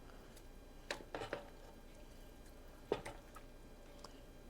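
Quiet room tone with a few faint light clicks and knocks, a small cluster about a second in and another about three seconds in.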